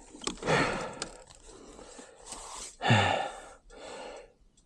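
A person breathing hard and out of breath, with a few loud exhales close to the microphone; the loudest comes about three seconds in.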